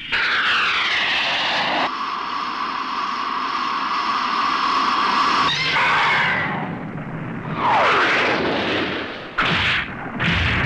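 Sound effects from a tokusatsu monster fight: a falling whistle-like sweep, then a long steady shrill tone, then another falling sweep, and two short loud blasts near the end.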